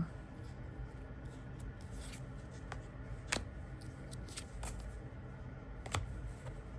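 Oracle and tarot cards being handled and laid on a table: a few light clicks and soft rustles of card stock, spaced irregularly.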